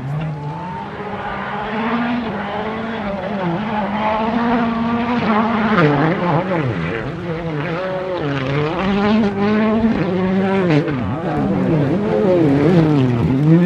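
Volkswagen Polo R WRC rally car's turbocharged four-cylinder engine heard from afar on a gravel stage, revs climbing and dropping again and again as it shifts and brakes through the bends, getting louder as it approaches.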